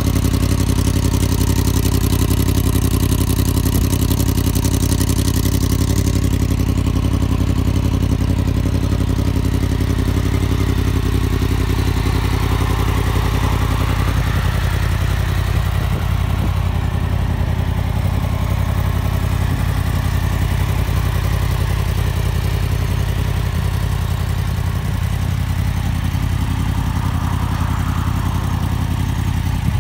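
Yamaha MT-10's 998 cc crossplane inline-four idling steadily, exhausting through a de-cat link pipe.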